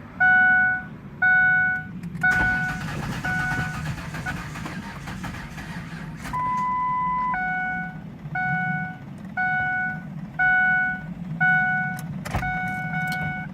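A pickup truck's dashboard warning chime beeping about once a second, with one longer, higher tone partway through. A few sharp clicks sound from behind the dash while the engine fails to crank.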